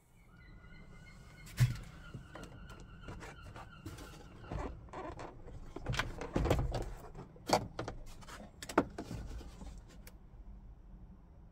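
Hand work on a car door: a run of sharp clicks and knocks of parts and tools, the loudest about a second and a half in and again past the middle, with a faint steady high whine during the first few seconds.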